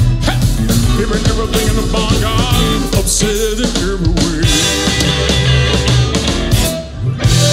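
Live blues band playing an instrumental passage, with a wavering lead line about halfway through.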